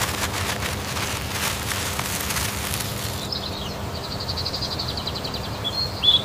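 Outdoor garden ambience on a cartoon soundtrack. A dense crackling rustle fills the first three seconds over a low steady hum. Then a high, fast chirping trill takes over until near the end.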